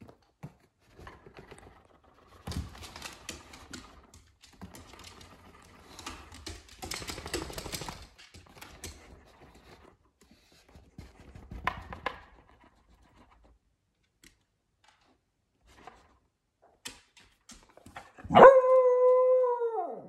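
A small dog lets out one loud, long howl near the end, held steady in pitch and dropping away as it ends. Before it come scattered scuffling and rustling sounds.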